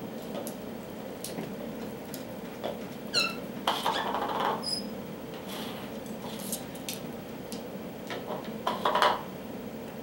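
Green plastic bowl scraped and knocked across a tile floor by an African red-bellied parrot pushing it with its beak. There are scattered clicks, louder scrapes a little before halfway and near the end, and a few short high squeaks.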